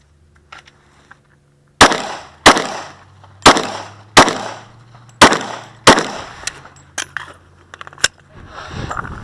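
Glock 22 .40 S&W pistol fired six times as three quick pairs, each pair about 0.7 seconds apart, with echoes after each shot. Two sharper, shorter cracks follow near the end.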